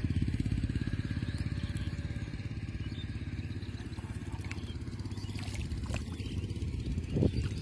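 A small engine runs steadily with a rapid, even low pulsing, over light sloshing of water as hands reach into bamboo fish traps in shallow water. A brief louder noise comes near the end.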